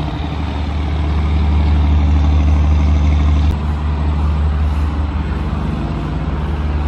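Heavy engine running at a steady low drone, its pitch holding steady and shifting slightly about halfway through.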